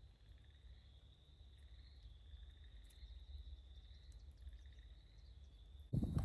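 Faint steady insect chorus, a continuous high-pitched trill, over a low rumble. Near the end a sudden much louder stretch of crunching and clicking takes over.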